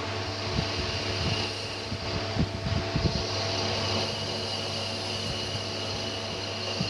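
CNC lathe running with a steady machine hum made of several held tones, with a few low knocks about two and a half to three seconds in.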